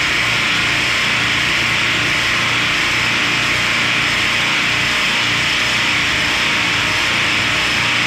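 Ice plant machinery running: a loud, steady hiss-like noise that holds even throughout, with no alarm tone or separate knocks.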